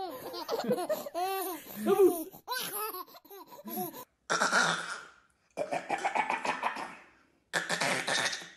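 Baby laughter. First a young child's voice in quick, repeated rising-and-falling squeals. Then, after an abrupt change about four seconds in, three long, breathy, husky bursts of laughter.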